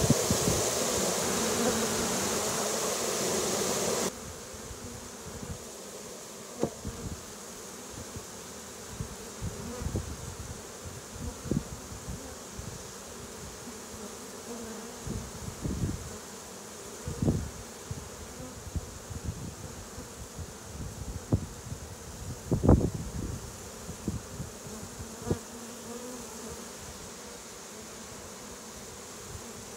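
Honeybee swarm buzzing in a dense, steady hum, louder for the first four seconds before it drops abruptly to a quieter hum. Scattered soft thumps sound over the buzzing.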